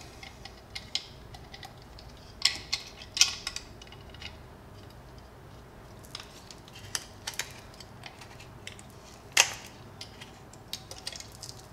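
Scattered small clicks and knocks of a metal conduit connector and its retaining nut being handled and threaded by hand onto a plastic camera housing, with one sharper knock about nine seconds in.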